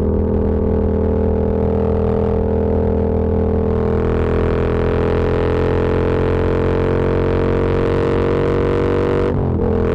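Yamaha MT-07's parallel-twin engine idling with a steady drone, with a brief wobble in pitch about nine and a half seconds in.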